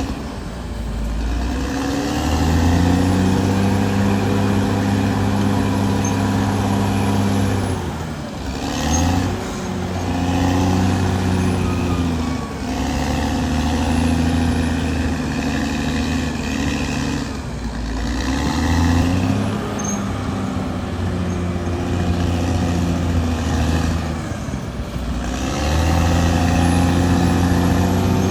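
Caterpillar D6R XL bulldozer's diesel engine running under load while working. Its pitch dips and recovers several times as the load changes.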